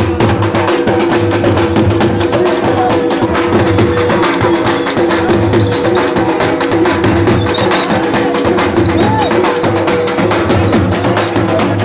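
Several large dhol drums beaten fast and continuously with sticks in a driving folk rhythm, with a steady held tone running underneath.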